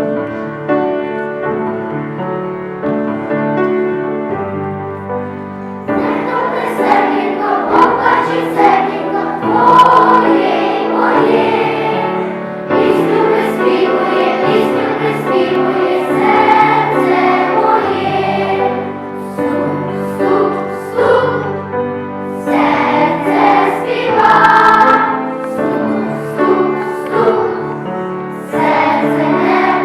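A choir singing a song with keyboard accompaniment; the keyboard plays alone for about the first six seconds before the voices come in.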